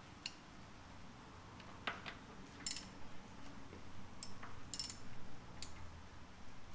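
About half a dozen faint, spaced-out metallic clinks of a wrench working the relief-valve fitting on a car's power steering pump as it is snugged down.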